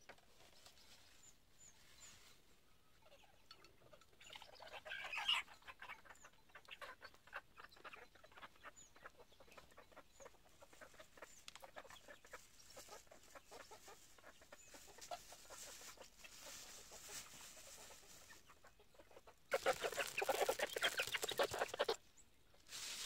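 Chicken clucking in short irregular calls, louder about five seconds in. Near the end a plastic bag rustles loudly for a couple of seconds.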